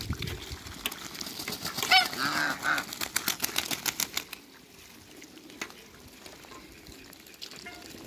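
Ducks splashing and dabbling in a shallow muddy puddle, a rapid run of small splashes and bill clicks, with a short honking call about two seconds in; the splashing dies down after about four seconds.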